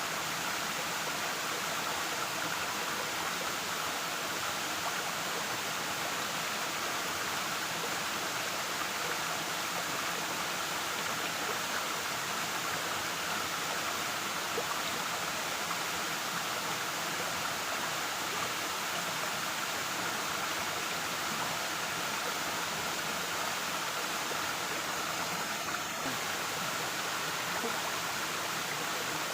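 Waterfall: water falling and rushing in a steady, even roar without a break.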